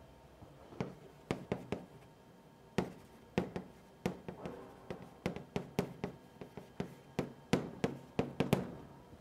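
Chalk writing on a blackboard: an irregular run of sharp taps as characters are written, sparse at first and coming faster from about halfway through.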